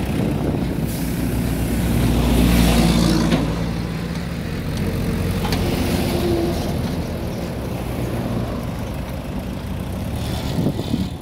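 Road traffic passing on a paved highway: engine and tyre noise, with one vehicle passing loudest about two to three seconds in, then steadier engine hum.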